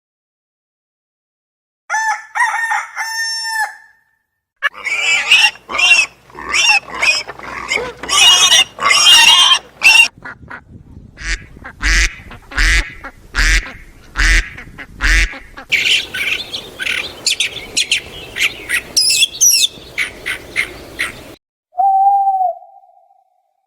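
Waterfowl calling: a run of repeated honking and quacking calls. Near the end it gives way to a single held, steady call.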